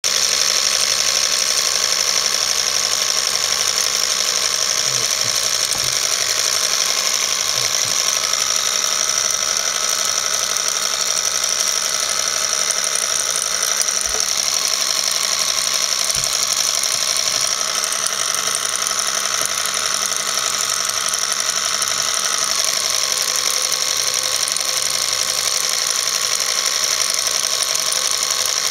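Film projector running steadily: an even mechanical whirr with a strong high hiss.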